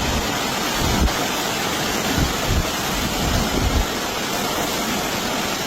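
Steady, loud rush of storm water, heavy rain and running floodwater, with a few dull low thumps.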